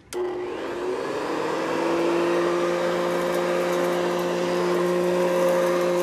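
Vacuum cleaner switched on: it starts suddenly, its motor whine rising in pitch for about a second and a half as it spins up, then running steady over a constant hiss.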